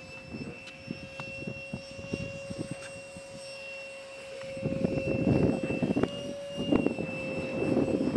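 Model A-4 Skyhawk jet flying high overhead on its maiden flight, its engine giving a steady high whine. Gusts of low rumble grow louder about halfway through.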